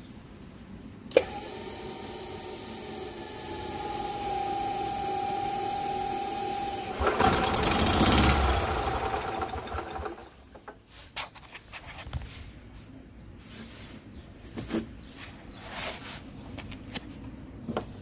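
Gas Club Car golf cart's starter/generator whirling with a steady high whine as it cranks through a loose, slipping drive belt, after a sharp click about a second in. About seven seconds in the engine catches and runs louder and rougher for a few seconds before dying away, followed by scattered clicks and knocks. The whirl and delayed start are the sign of a loose starter/generator belt.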